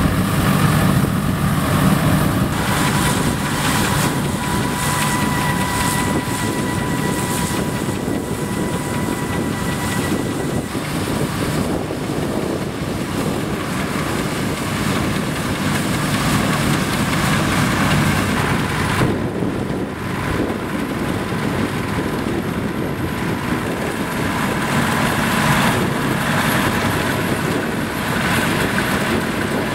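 Nuffield tractor engine running steadily while towing a Dronningborg pull-type combine harvester, with the combine's threshing machinery running as it harvests standing grain. A faint steady whine holds for several seconds early in the run and returns faintly later.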